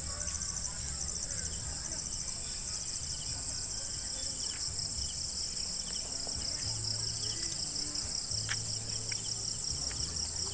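Dusk chorus of insects in hillside vegetation: a steady, high, rapidly pulsing trill.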